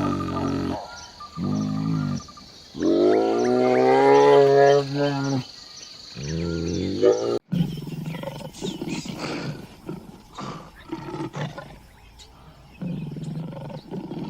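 A series of drawn-out animal calls with a clear pitch, the longest lasting about two and a half seconds. After an abrupt cut about seven seconds in, a run of low, rough, growling calls follows in short pulses.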